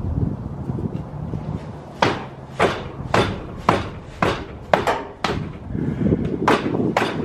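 A series of about ten sharp knocks, roughly two a second from about two seconds in, each ringing briefly: blows struck on a car part to knock it loose while the engine is being removed.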